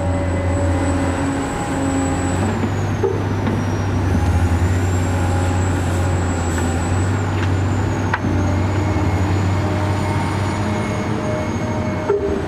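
Radio-controlled model excavator running: a steady low hum with a high, thin electric whine from its motors and hydraulic pump that dips and recovers in pitch as it works, and a sharp click about eight seconds in.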